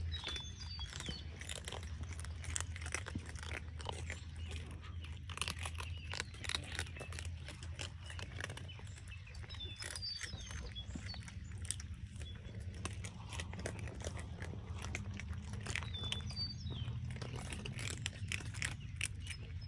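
Several cats chewing dry kibble: a dense, uneven run of quick crisp crunches.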